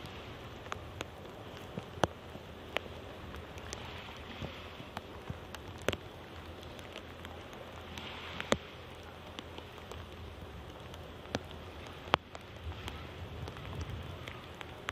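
Rain: scattered drops tick sharply and irregularly, a few of them louder, over a steady hiss with a low rumble beneath.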